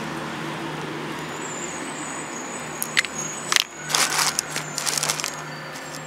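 A steady low hum of road traffic, with a few sharp clicks and then crinkly, rustling bursts a little past halfway as the parts of a bike repair kit and their packaging are handled.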